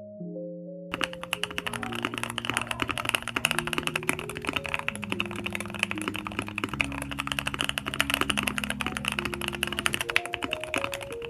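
Fast, continuous typing on a mechanical keyboard, the keystrokes starting about a second in and running densely on. Background music with soft mallet-like notes plays throughout.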